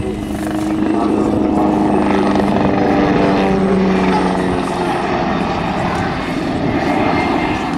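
PZL SW-4 Puszczyk light helicopter flying display manoeuvres: its single turboshaft engine and rotor blades give a steady beating drone, and a set of steady humming tones fades out about five seconds in.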